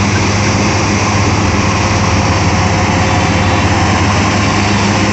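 World 115pro rice combine harvester running steadily under load, its diesel engine and machinery giving a loud, even drone with no change in pitch.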